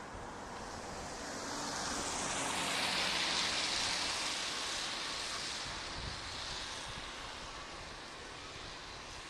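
A vehicle passing on a wet road, its tyre hiss swelling to a peak about three seconds in and then fading away.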